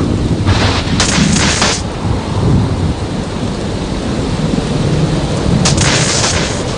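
Thunderstorm: low rolling thunder under steady rain, with two louder crackling surges of hiss, one about half a second in lasting over a second and a shorter one near the end.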